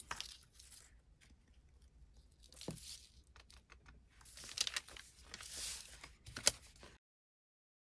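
Faint rustling and light clicks of paper and a clear plastic stamp sheet being handled on a craft table, with louder rustles in the second half; the sound cuts off abruptly to silence near the end.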